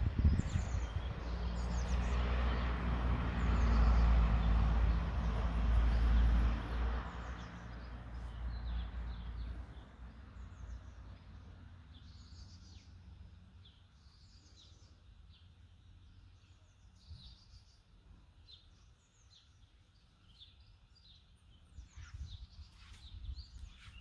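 A motor vehicle passes on the road, a low engine rumble with tyre hiss that swells, peaks about four seconds in and fades away over about ten seconds. Then small birds chirp intermittently against quiet outdoor background.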